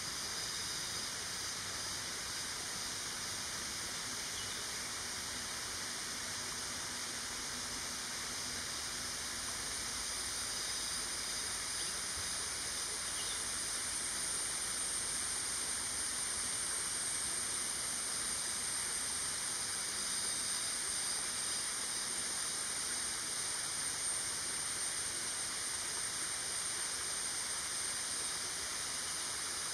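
Steady outdoor background hiss, strongest high up, with a continuous high-pitched drone that grows a little louder about halfway through.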